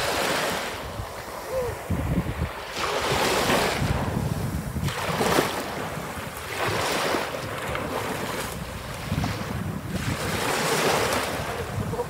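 Small waves breaking and washing up over sand, rising and falling in surges every couple of seconds, with wind rumbling on the microphone.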